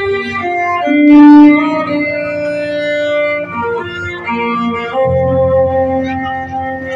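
Music: an organ-sounding keyboard holding slow chords, each note sustained a second or two before the harmony moves on.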